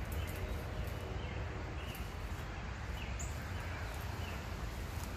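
Outdoor ambience: a steady low rumble of wind on the microphone, with small birds chirping faintly now and then and one higher chirp about three seconds in.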